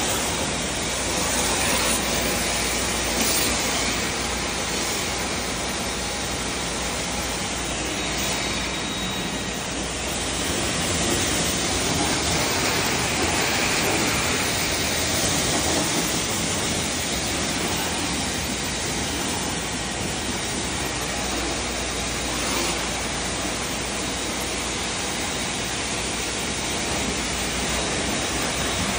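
High-pressure water jet from an AR630-TSS hot-water pressure washer spraying against the metal walls of a kitchen exhaust hood. It is a steady rushing spray, rinsing off foamed degreasing chemical and grease.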